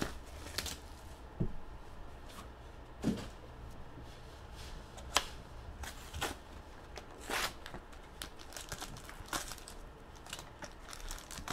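Hands opening a 2012-13 Panini Intrigue Basketball card box: irregular rustles, scrapes and crinkles of cardboard and wrapping, with a sharp snap about five seconds in.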